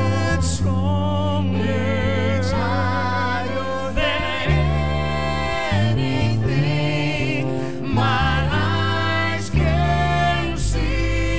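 Live worship band: two women and a man singing together with vibrato into microphones, over keyboard and band accompaniment with a strong, sustained low bass.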